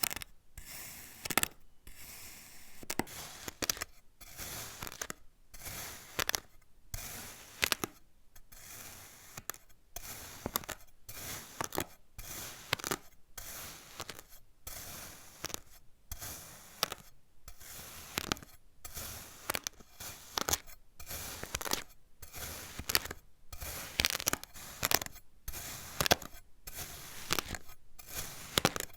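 Kinetic sand being cut again and again, a crunchy, crackling scrape with sharp little clicks on each cut, about one cut a second with a short pause between.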